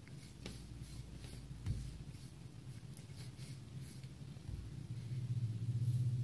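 Wooden rolling pin rolling pizza dough out on a floured wooden board: faint soft rubbing with a few light knocks. A low hum grows louder in the last couple of seconds.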